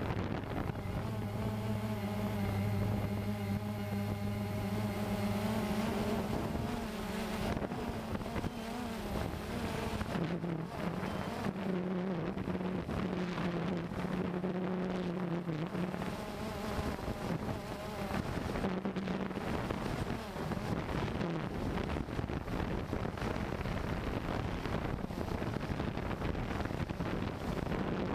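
Cheerson CX-20 quadcopter's motors and propellers humming in flight, the pitch wavering and dipping slightly as the throttle changes, with wind buffeting the microphone.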